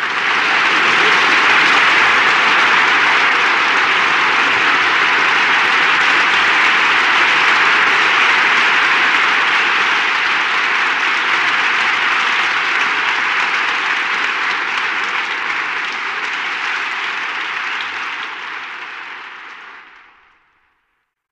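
Crowd applause: many people clapping in a dense, steady patter that fades out near the end.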